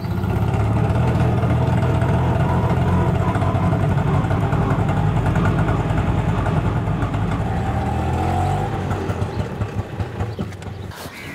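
Auto-rickshaw engine running steadily with a fast, low throb. About eight and a half seconds in it drops and turns uneven as the rickshaw slows to a stop.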